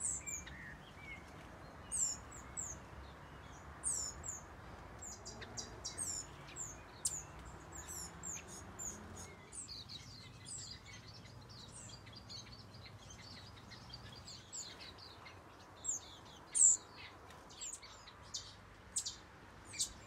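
Small aviary finches chirping: many short, high call notes scattered throughout, some sliding down in pitch, with one louder call about three-quarters of the way in.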